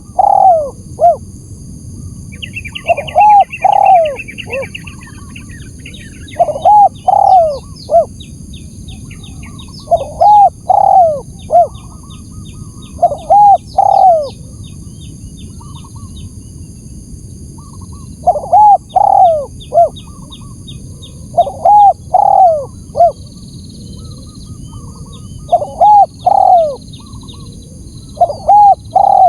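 Spotted dove cooing a lure call: a phrase of three or four arched coos, repeated about every three seconds, with one longer pause midway. Small birds chirp rapidly in the background over a steady high-pitched tone.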